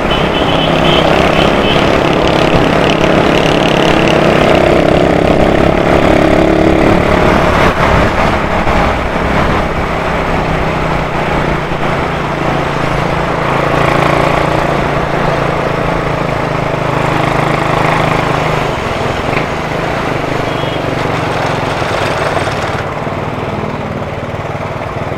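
Motorcycle engine running as the bike rides through traffic, with steady road and wind noise. It gets quieter near the end as the bike slows in the queue.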